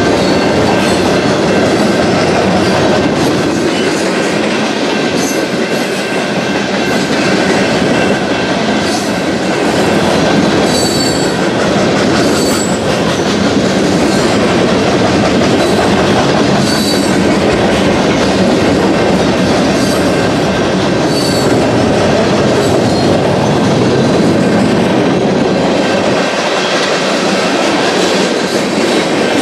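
Freight train cars, mostly loaded centerbeam lumber flatcars, rolling steadily past: a continuous loud noise of steel wheels on the rails. A few brief, high wheel squeals come through midway.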